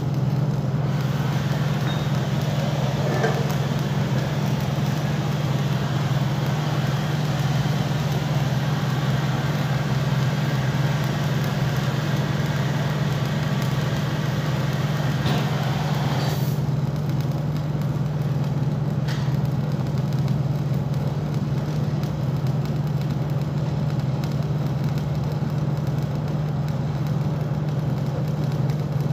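Welding machine running with a steady low hum, under the hiss and crackle of arc welding.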